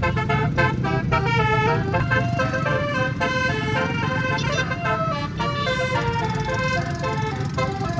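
A tour bus's 18-note 'basuri' telolet air-horn set playing a melody over a low rumble, quick short notes at first, then longer held notes.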